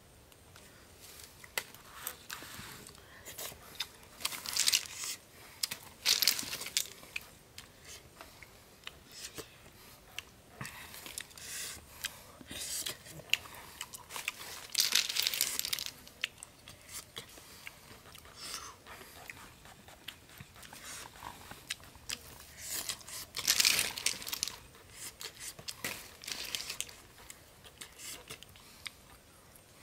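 Boiled snails being eaten by hand: scattered clicks and crunches of the snail shells being handled and picked at, with a few short louder noisy bursts spread through.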